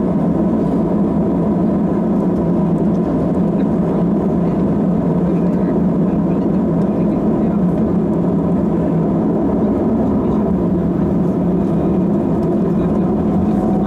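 Airbus A319's jet engines running at low taxi power, heard inside the passenger cabin as a steady drone with a faint, even whine.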